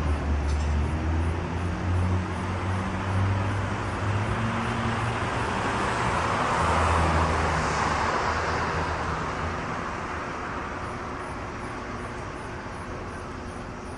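Street traffic: a car drives past, its noise swelling to a peak about halfway through and then slowly fading, over a low engine hum.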